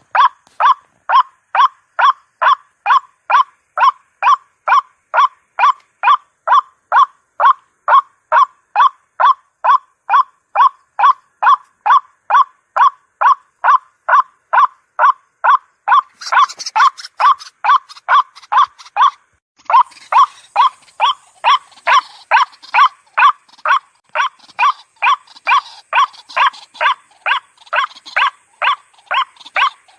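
White-breasted waterhen calling: a steady run of short croaking notes, about two a second, with a brief pause a little past two-thirds of the way through.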